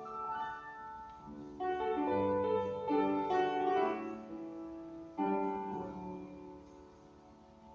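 Piano playing slow chords, each struck and left to ring and fade, with fresh chords about one and a half and five seconds in. The music fades toward the end.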